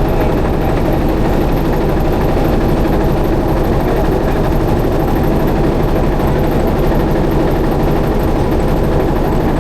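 A boat's engine running steadily, an even low drone with no change in speed.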